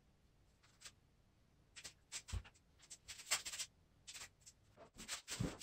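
Faint, intermittent scratchy rubbing along plywood edges, with a couple of soft knocks, as glue is run along the ribs of a plywood torsion box.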